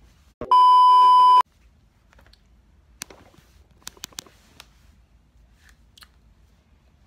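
A single electronic beep about a second long, one steady high tone, followed by a few faint clicks.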